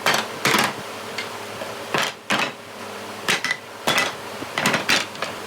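Pieces of scrap lumber knocking and clattering against each other as they are handled, about a dozen irregular sharp knocks, some ringing briefly.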